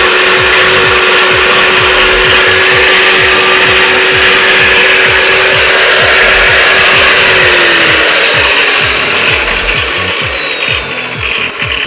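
A handheld power tool running at full speed with a grinding, rubbing noise and a regular low pulse about three times a second; about seven seconds in its motor is released and spins down, the whine falling in pitch.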